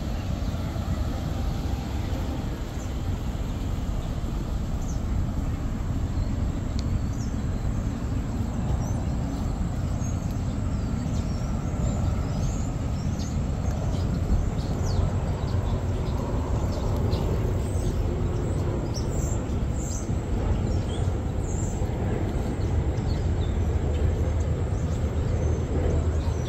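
Outdoor urban park ambience: a steady low rumble of city background noise, with birds chirping in short high notes again and again from about five seconds in.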